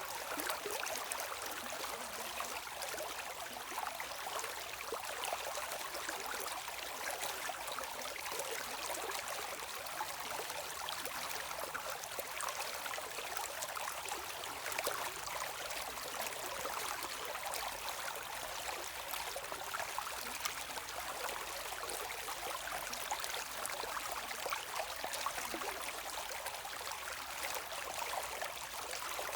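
Shallow stream running steadily over stones, an even splashing and trickling hiss with no low rumble.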